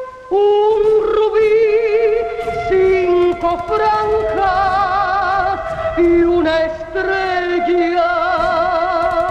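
Music: a melody of long held notes with a wide vibrato, moving from pitch to pitch every second or so, with a few short downward slides.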